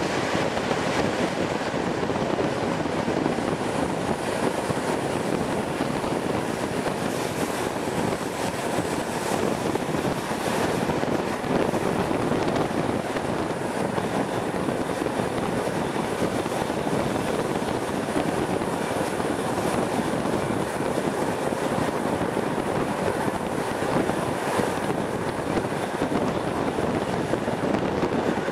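A passenger train running steadily, heard at an open coach window: a continuous rush of wind and the rolling noise of wheels on rails, with a few faint clicks.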